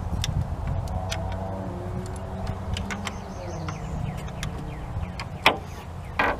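Metal socket and extension clicking and tapping as a bolt is turned by hand into the EGR valve on a Chevy Tahoe engine, with a sharper click about five and a half seconds in.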